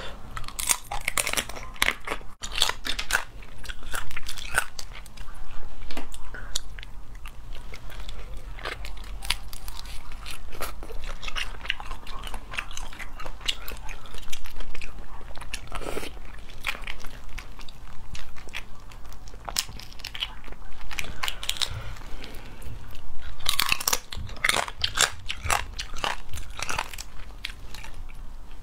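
Close-up eating of sauced crayfish: shells cracking and crackling as they are pulled apart by hand, mixed with biting and wet chewing of the meat, in irregular bursts of sharp clicks.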